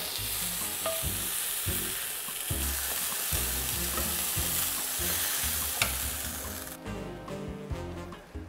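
Sirloin steak sizzling as it sears in a hot cast-iron skillet, with a few light clicks of tongs against the pan. The sizzle stops abruptly late on.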